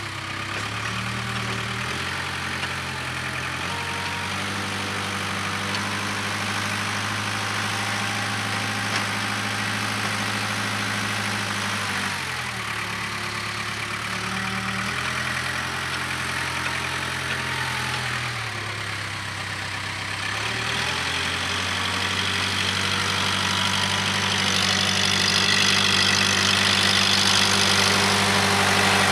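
Case 580K backhoe's diesel engine running as it works, its speed stepping up and down several times with two brief dips as the load changes. It grows louder near the end.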